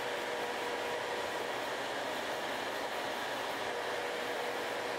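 Electric nail drill whirring with a sanding band bit against a natural fingernail, over the steady rush of a nail dust collector fan, with a steady hum through it.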